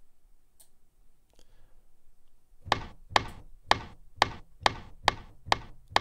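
Serum's 'snap' noise sample, played as a one-shot and run through tube distortion and a compressor, triggered over and over as the first layer of a synthesized rifle shot. Eight sharp cracks come about two a second, starting a little before halfway, each with a short tail.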